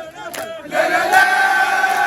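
A crowd chanting loudly in unison with long held notes. There is a brief break at the start, and the chant picks up again just under a second in.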